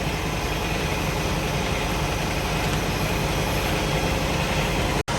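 Heavy work-truck engine running steadily at a constant idle, with a low, even hum. The sound drops out completely for an instant near the end.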